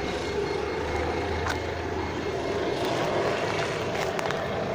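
Steady outdoor background noise with a low rumble that fades about two and a half seconds in, and a few faint clicks.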